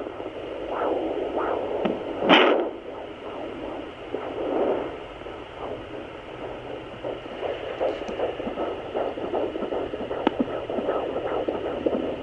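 Handheld fetal Doppler's speaker relaying whooshing and thumping as the probe slides over gel on a pregnant belly, with a brief loud crackle about two seconds in. In the second half it settles into a quick, regular pulsing: the fetal heartbeat.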